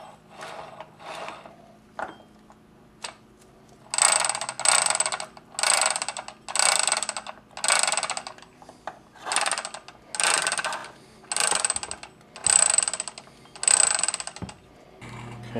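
Polaris Trail Boss transmission gears turned by hand in the open case, the teeth rattling and clicking in bursts. Faint at first, then from about four seconds in a run of about a dozen louder half-second bursts, roughly one a second.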